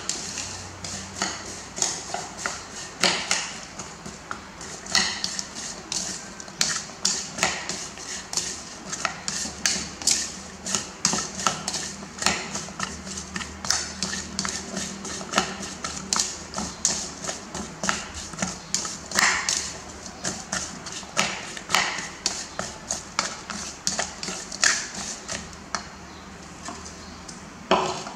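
Plastic spoon clacking and scraping against a ceramic bowl as diced raw potato, carrot and beef are stirred and tossed: an irregular run of sharp taps, a few each second, with a faint steady hum underneath.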